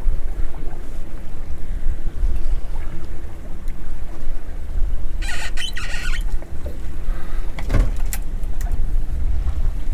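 Wind buffeting the microphone on a small boat at sea, over a low steady hum from the boat. A brief high squeal comes about five seconds in, and a knock near eight seconds.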